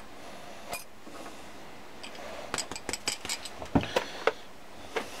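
Light metallic clicks and clinks of a steel keyway broach being drawn out of the bush in a gear's bore and handled: one click under a second in, then a quick run of small clinks from about two and a half seconds, the loudest near four seconds, and one more near the end.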